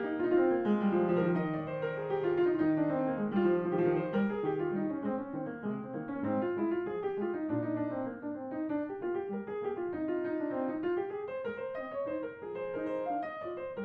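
Background piano music: a continuous flow of notes with a melody rising and falling over lower notes.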